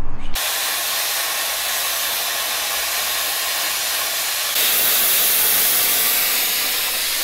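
Handheld plasma cutter cutting steel plate: a steady hiss of air and arc that steps up louder and brighter about four and a half seconds in.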